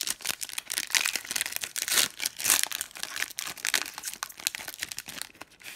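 Foil wrapper of a 2017 Panini Prestige football card pack being torn open and crinkled by hand: a dense run of crackles that thins out near the end.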